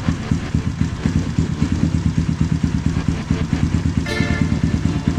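Kawasaki KLX/D-Tracker single-cylinder four-stroke idling steadily through an aftermarket GP7 CNC-series exhaust, a quick even run of exhaust pulses.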